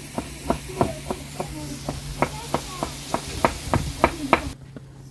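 Chef's knife chopping carrots on a wooden cutting board: even knocks about three a second, stopping abruptly about four and a half seconds in.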